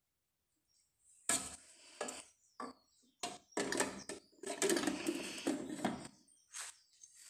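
Food processor and blender parts being handled: a run of irregular clicks, knocks and rattles from the jug and bowl, starting about a second in, with no motor running.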